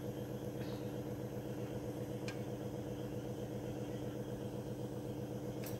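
A steady mechanical hum, even in pitch and level, with a few faint ticks.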